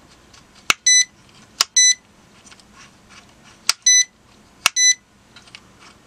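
Uni-T UT61E digital multimeter's rotary range switch clicking into position four times, each click followed a moment later by the meter's short high beep, with fainter detent clicks in between. The switch is now changing ranges cleanly after corrosion and gunk were cleaned off its contact traces.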